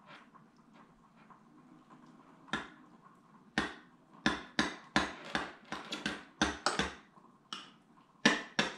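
Spoon knocking against the side of a small bowl as sour cream and hot sauce are stirred together. It is faint at first, then a run of sharp, irregular clicks begins about two and a half seconds in, coming a few times a second and thicker near the end.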